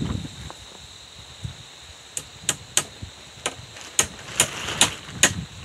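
A run of about nine sharp strikes, two to three a second, starting about two seconds in: nails being hammered into the birch logs of a log wall.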